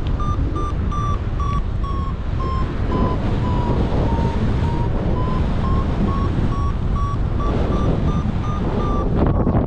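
Paragliding variometer beeping, about two or three short beeps a second, its pitch sinking a little and then climbing back up: the tone a vario gives while the glider is climbing in lift. Steady wind rush on the microphone underneath.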